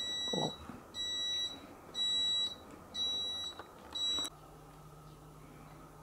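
Electronic beeper sounding a high, steady beep about once a second, five half-second beeps in a row, which stops abruptly a little after four seconds in. A faint low hum of room tone follows.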